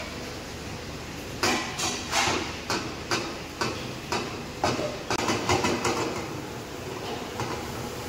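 A metal spatula clanking and scraping against a frying pan as food is stirred on a gas stove, in a run of sharp, irregular clinks.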